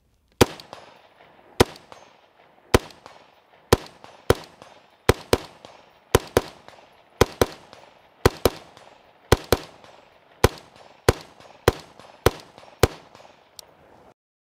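An LMT MARS-L 5.56 mm rifle fired semi-automatically: about twenty shots at roughly one a second, several of them quick doubles, each followed by a short echo. The last shot is fainter.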